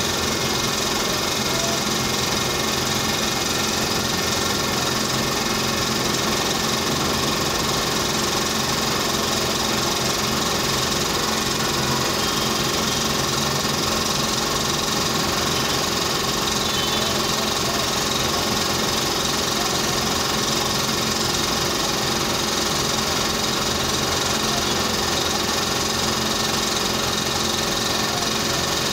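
A motor running steadily: a constant mechanical hum made of several fixed tones, with no change in pitch or level.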